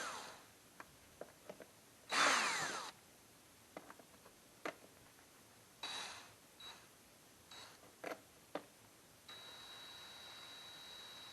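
Tool work removing the plastic air filter cover on a Briggs & Stratton push mower engine. There are several short bursts that fall in pitch, the loudest about two seconds in, with small clicks and knocks between them. A faint steady high whine sets in about nine seconds in.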